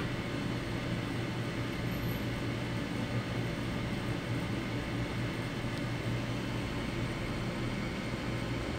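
Steady mechanical drone: a low hum under an even hiss, unchanging throughout.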